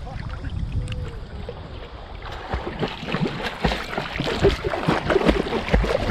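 River water splashing and churning as a German Shepherd swims past a man wading waist-deep. Low and steady at first, the splashing turns louder and busier about two seconds in, with sharp slaps and low thuds of water right at the microphone.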